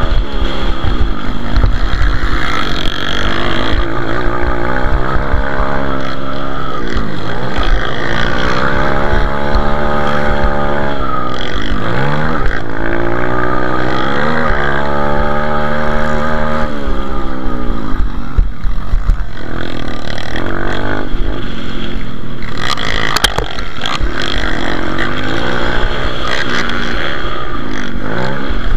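Pitbike's single-cylinder engine, heard from onboard, revving up and down again and again as the rider accelerates and shuts off through the turns. There is a brief sharp knock about two-thirds of the way through.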